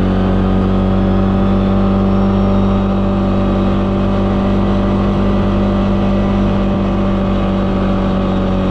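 Four-wheeler (ATV) engine running at a steady speed, holding one even pitch with no revving.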